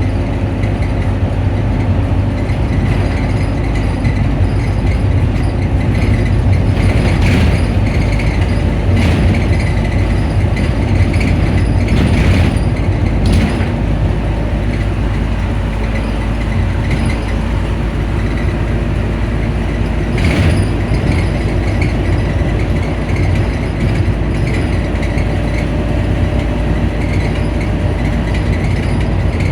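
Optare Solo bus engine idling with its engine cooling fan running, a steady low hum with a few short rattles or clicks.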